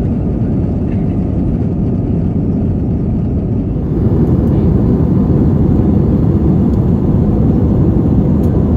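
Airbus A321 cabin noise in the climb after takeoff: a steady, deep rush of jet engines and airflow heard from inside the cabin. It turns a little louder and brighter about four seconds in.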